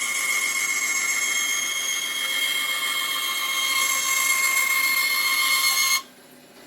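TIG welding arc making a steady high-pitched buzzing whine over a hiss, which cuts off abruptly about six seconds in.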